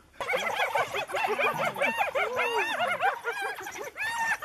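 A pack of African wild dogs twittering: many rapid, high-pitched chirping calls overlapping one another, with a few lower calls mixed in. They start just after a brief break at the very beginning.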